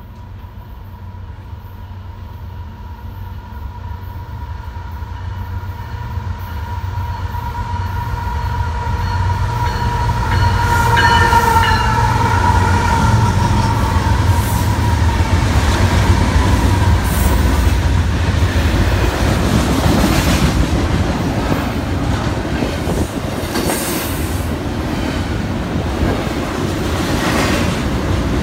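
Diesel freight locomotives approaching and passing close by, growing louder over the first ten seconds, with a steady high tone that peaks as the engines go by and then fades. Then a double-stack container train rumbling past, its wheels clacking over the rail joints.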